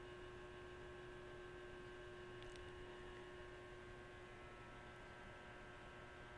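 Near silence: a faint steady electrical hum in the recording, with one faint click about two and a half seconds in.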